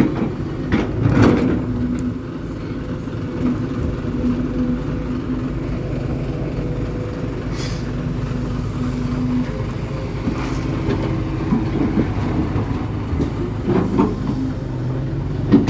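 Heavy diesel machinery running steadily at a dirt pit: a ten-wheel dump truck and a hydraulic excavator. It makes a low rumble with a steady hum, broken by a few short knocks.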